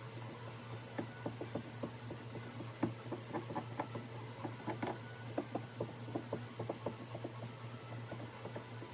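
Many irregular light clicks and taps over a steady low hum.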